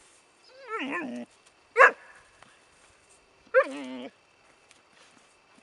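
A dog gives a falling, wavering whine, then a short sharp bark, then about two seconds later a second bark that runs straight into another wavering whine.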